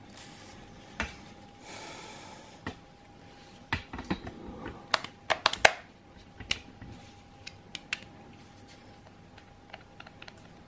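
Hard plastic clicks and knocks as a Parkside PBH 800 A1 hammer drill and its side handle are turned over and handled, with a short rustle about two seconds in. The clicks come in quick clusters mid-way, then thin out to a few light taps near the end.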